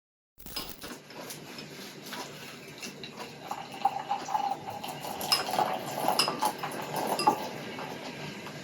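Dishes and cutlery clinking and knocking, a run of small scattered clinks that starts about half a second in.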